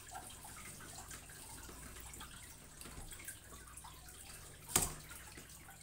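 Jayco three-stage telescopic roof riser being forced past its limit: faint scattered small clicks, then one sharp snap nearly five seconds in as the top plastic locator slide pulls out of the top tube, the riser's common failure.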